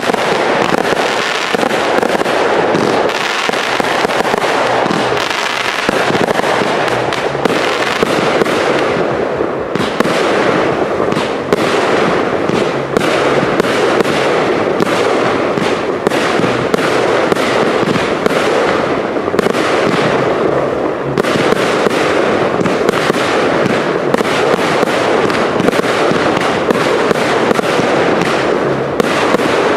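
Cake firework (multi-shot battery) firing in a rapid, unbroken barrage, the bangs of launches and bursts following so closely that they overlap.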